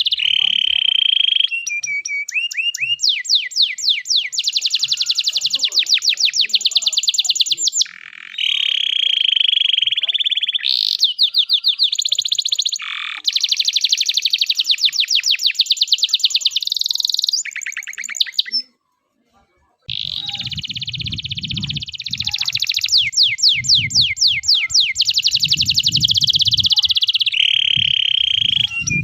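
A domestic canary singing a long, continuous song of rapid trills and rolls with steady whistled stretches. It breaks off into a short silence about two-thirds of the way through, then resumes with a low rumble underneath.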